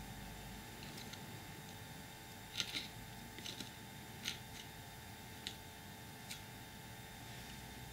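Faint clicks and taps of metal tweezers picking green flock scatter out of a pot and working it into the corners of a card model, about half a dozen small clicks from a few seconds in, over a quiet room tone.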